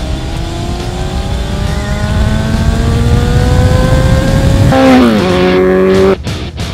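Motorcycle engine accelerating hard, its pitch rising steadily for several seconds, then dropping at an upshift and running on at the lower pitch before cutting off abruptly near the end.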